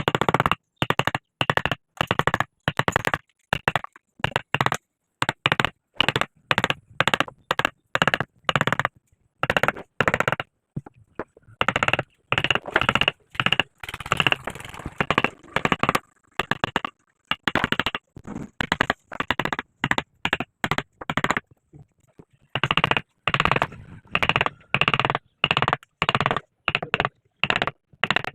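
Mallet striking a chisel to carve wood, in a steady run of sharp knocks about two or three a second, pausing briefly twice.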